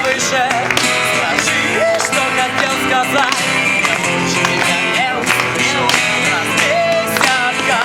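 A live band playing a song: a wavering lead melody over bass and guitar, with a steady beat.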